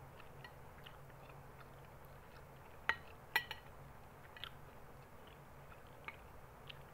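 Metal spoon clinking against a plate of rice as she eats, with two sharp clinks close together about three seconds in and a few fainter taps after. Chewing sounds and a low steady hum lie underneath.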